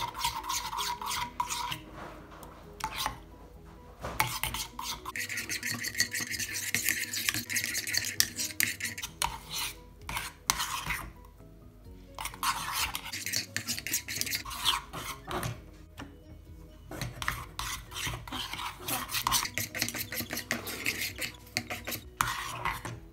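Metal spoon stirring and scraping a thick homemade glue paste around an enamelled saucepan, in quick repeated strokes with a few brief pauses.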